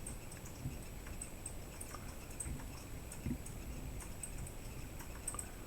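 Faint, scattered small clicks and one soft knock about three seconds in, from light handling of tools at the workbench while flux is put on the chip's pins.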